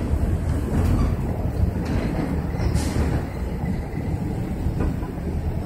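Outdoor city street ambience: a steady, uneven low rumble of traffic and wind on the microphone.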